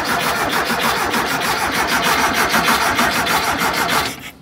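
Starter motor cranking a VW air-cooled flat-four with even pulses as it turns over without firing, the ignition left unplugged, so the new fuel pump can draw fuel. The cranking stops about four seconds in.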